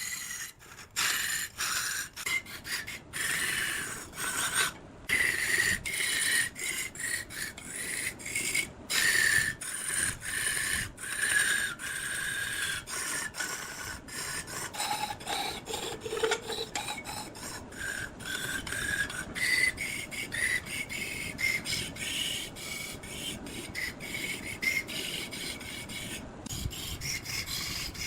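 Wood being cut and scraped by a woodworking tool, in short irregular strokes with a high rasping edge.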